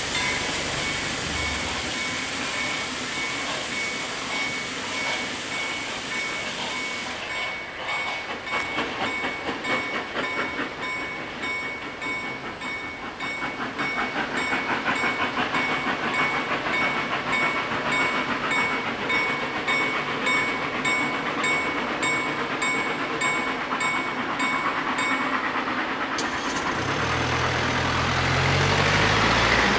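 Level crossing warning bells ringing fast and steadily while a steam-hauled train pulls away over the crossing. The bells stop about four seconds before the end, and a car engine approaches.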